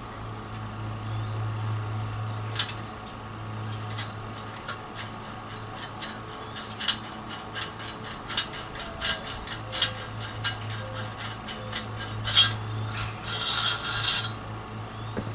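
Mounting hardware being handled and adjusted by hand: scattered sharp clicks and taps of metal parts, with a short rasping rub near the end, over a steady low hum.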